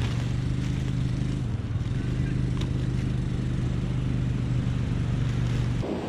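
A motor engine running steadily at an even speed, a low constant drone. Near the end it stops abruptly and the wash of surf and wind takes over.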